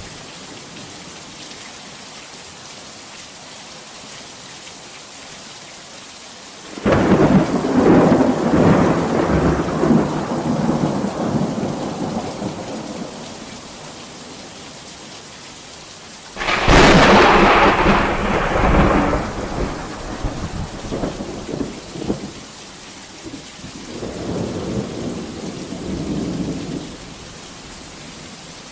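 Thunderstorm: steady heavy rain with three peals of thunder. A rumble sets in about seven seconds in and dies away. A sharper crack comes about halfway through and rolls on for several seconds. A fainter rumble follows near the end.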